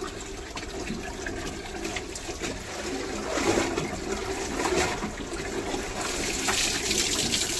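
Tap water pouring into a plastic tub and splashing as a wet shirt is rinsed by hand under it, with a few louder splashes midway.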